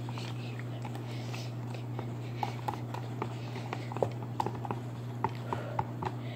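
Fingers stirring and squishing a thin, watery slime mix of glue, water, borax and blue food colouring in a plastic tub: irregular small wet clicks and smacks, several a second, the sharpest about four seconds in, over a steady low hum. The mix is still runny, short of glue.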